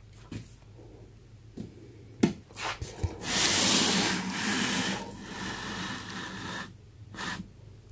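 Handling noise from a glass aquarium and tools on a work table: a few knocks and clatters, then a few seconds of rubbing or scraping as the tank is pushed along the table, loud at first, then quieter. A short scrape comes near the end.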